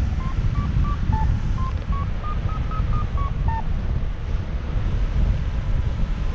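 Airflow buffeting the microphone in flight, with a paragliding variometer beeping a quick series of short tones around a second in that climb and then fall in pitch, signalling the glider rising in lift.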